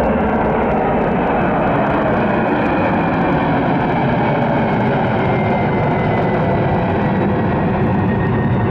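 Jet engine noise of a Boeing 767-300F freighter: a loud, steady rush with a faint whine gliding slowly down in pitch in the second half.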